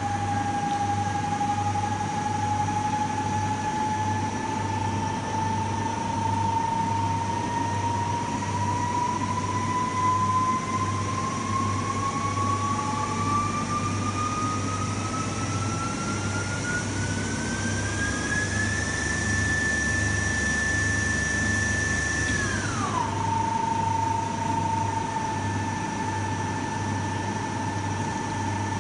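Daewoo Puma 10HC CNC lathe running, its spindle drive whining over a low hum. The whine rises slowly in pitch for most of the time, holds for a few seconds, then drops quickly and stays steady.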